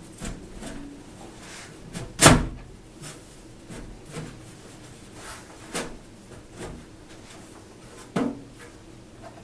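Corten steel planter panel being slid down into the slotted grooves of the planter: scattered knocks and scrapes of steel on steel, the loudest about two seconds in.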